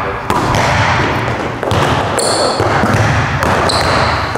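Basketball bouncing on a hardwood gym floor, with two short high sneaker squeaks, a little over two seconds in and near the end.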